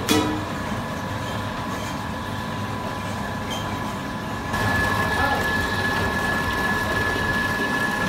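Electric motor of a rice-dough roller machine running steadily, a constant high tone over a noisy hum. It gets louder about halfway through.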